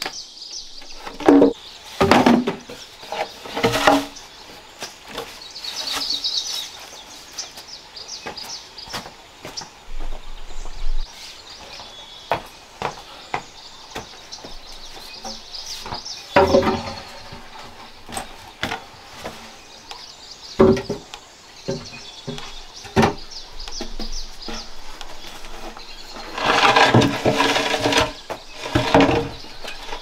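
Large hollow bamboo tubes knocking and clattering as they are handled and set against rock, with a sharp knock every few seconds and a quick run of ringing knocks near the end. Steady high chirping from the forest runs underneath.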